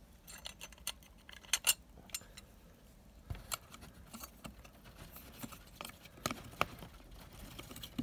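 Irregular light clicks, clinks and small knocks of a Mk7 Ford Transit EGR valve's housing being worked at and pried apart with a screwdriver, with a few sharper clicks scattered through.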